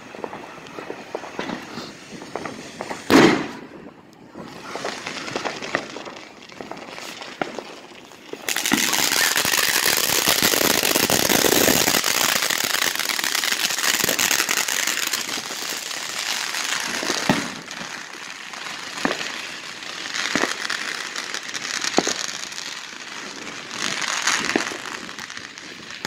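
Consumer fireworks: a single loud bang about three seconds in, then from about eight seconds a long run of dense crackling that eases off gradually, broken by scattered sharper pops.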